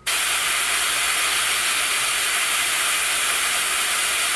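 Airbrush spraying paint through a circle stencil: a steady hiss of air and paint that starts suddenly when the trigger is pressed.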